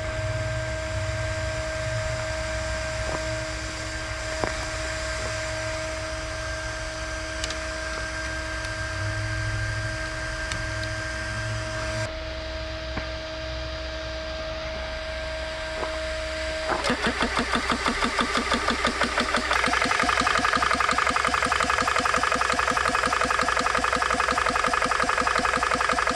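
GX CS2 portable 12-volt PCP air compressor running while it fills an air rifle: a steady hum and whine at first, then about two-thirds of the way in a fast rhythmic pumping of about five strokes a second comes in and grows louder.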